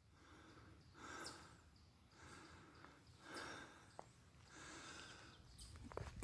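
Near silence outdoors, with a few faint soft rustles and one small click about four seconds in.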